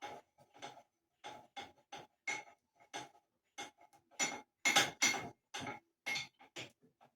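Steel jack post parts clinking and tapping: a quick, irregular run of metal-on-metal strikes, about three a second, each with a brief ring, loudest around the middle.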